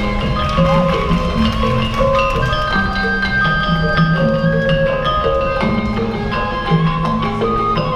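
Live instrumental music: mallet-struck pitched percussion plays a repeating pattern over held melodic notes, with a couple of sliding notes.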